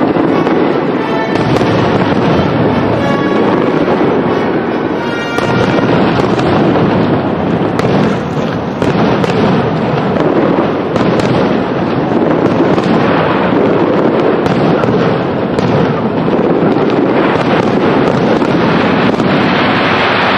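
Fireworks display: aerial shells bursting in a steady barrage of sharp bangs, with music playing underneath.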